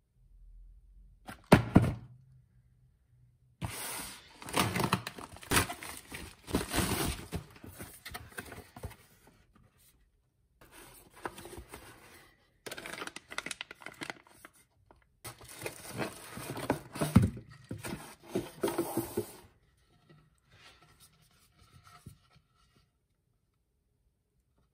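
A cardboard box and its packaging being handled and unpacked: a single thunk about a second and a half in as the box is set down, then stretches of rustling and crinkling of cardboard, foam wrap and a plastic bag, fading to light handling near the end.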